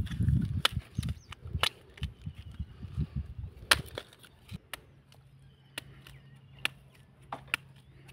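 A knife chopping into the husk of a palmyra palm fruit: a run of sharp cuts, close together for the first few seconds, then sparser.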